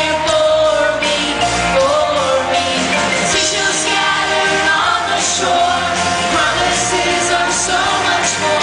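Children's choir singing a praise and worship song over loud musical accompaniment.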